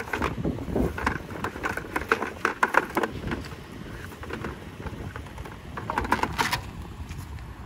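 Wet nylon cast net being handled over a bucket: rustling mesh and short clicks from its lead weights. About six seconds in there is a louder swish as the net is thrown open.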